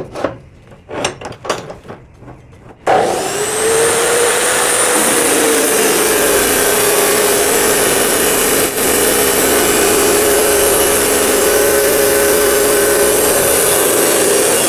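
A few light knocks, then about three seconds in a DeWalt D28870 14-inch (355 mm) 2200-watt abrasive chop saw starts abruptly, its pitch rising briefly as it spins up. It then runs steadily and loudly while the abrasive wheel grinds through 2x2 steel angle iron.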